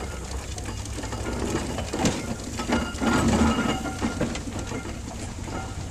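Steam traction engine running as it drives past, a steady low chuffing rumble with clanking from its motion and wheels, loudest about two to three and a half seconds in as it comes closest.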